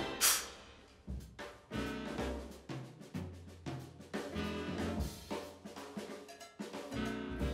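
Outro music: a cymbal crash right at the start, then a quieter drum-kit beat with bass notes underneath.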